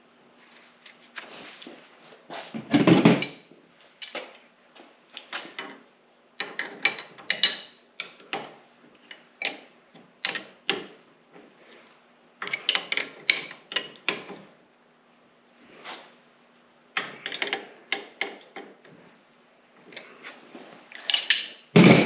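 Open-end wrenches clinking against steel hydraulic hose fittings as the fittings are tightened: irregular clusters of metal clicks and taps, with louder clanks about three seconds in and near the end.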